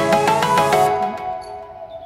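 Background music: quick plucked notes that die away about a second in, leaving one held tone.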